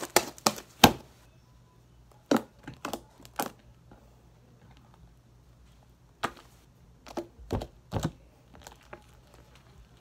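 Wet, sticky slime being squeezed and stretched by hand, giving off sharp clicks and pops. They come in scattered clusters: several right at the start, a few about two and a half to three and a half seconds in, and more around six to eight seconds in.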